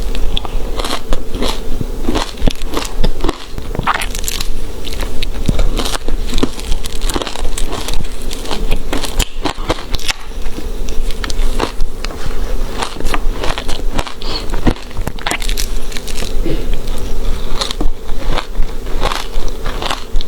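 Ice being bitten and chewed close to the microphone: a dense, irregular run of crunches and crackles.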